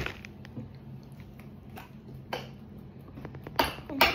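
Scattered clinks and clicks of a utensil against a bowl while slime is being mixed, a sharp one at the start and a few more spread out, over a steady low hum.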